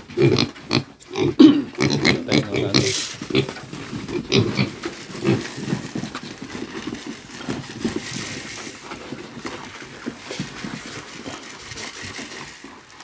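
Piglets grunting and squealing as they crowd the trough, many short calls close together in the first half and fewer later, with dry feed pouring into the trough in the second half.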